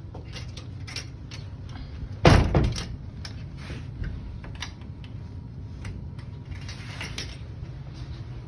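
A loud wooden thump about two seconds in with a short ringing tail, among scattered lighter knocks and clicks, a smaller knock near four seconds and a brief scrape near seven seconds, over a steady low hum.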